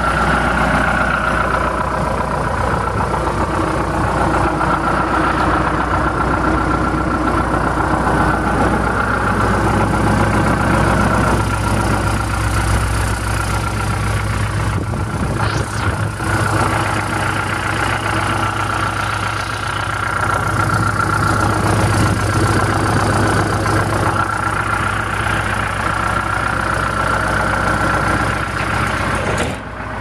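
John Deere 310SG backhoe's four-cylinder diesel engine idling steadily, with a steady whine above the engine note.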